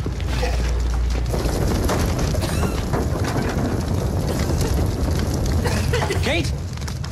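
Fire burning with dense crackling through an apartment, with a deep low rumble for the first second or so.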